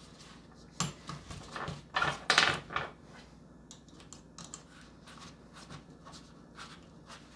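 Small parts of a knife kit being handled and set down: a run of light clicks and taps, loudest in the first three seconds, then fainter scattered ticks.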